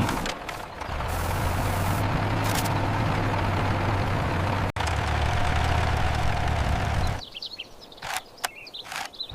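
A vehicle engine running steadily with a low hum, briefly breaking off about halfway through. It stops about seven seconds in, leaving only faint scattered clicks and chirps.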